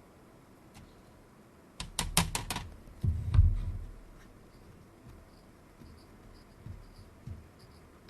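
A quick run of about five small, sharp clicks, then a dull bump about a second later: handling noise from a small tool and hands working on a Pentax K1000 camera body while old foam light seals are scraped off. A few faint ticks follow.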